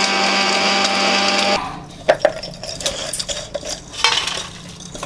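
Electric mixer grinder running, grinding gond (edible gum) and makhana (fox nuts) in its steel jar; it cuts off abruptly about a second and a half in. Scattered clinks and scrapes of metal follow as the ground powder is tipped from the steel jar onto a steel plate.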